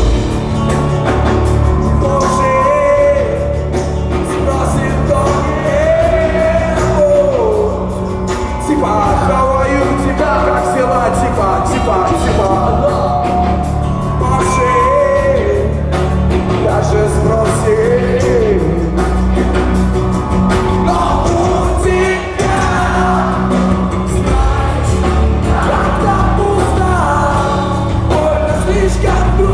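Rock band playing live, with a vocal line over a steady, loud full-band accompaniment.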